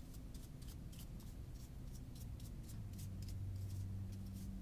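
Small lint brush scratching in quick, irregular strokes as it scrubs lint out of a sewing machine's bobbin case, over a low steady hum.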